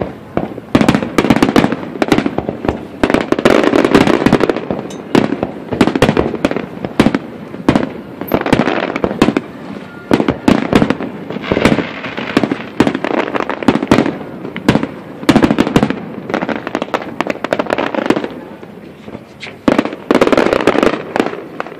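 Aerial fireworks display: shells launching and bursting in quick succession, a dense, continuous run of loud bangs.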